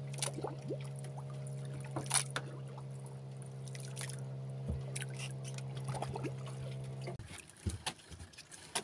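A boat engine running steadily at idle, a low even hum, that cuts off suddenly about seven seconds in. Small clicks and taps of fishing tackle being handled come and go over it.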